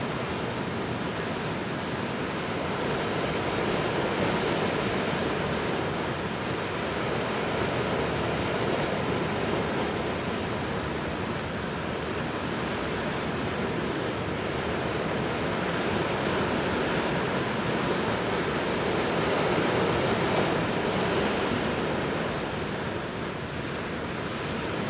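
Steady seaside ambience of wind and waves, a hiss that slowly swells and eases every few seconds.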